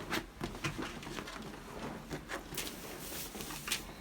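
Rustling and a scatter of light clicks and knocks as a person turns over onto her front on a padded chiropractic treatment table.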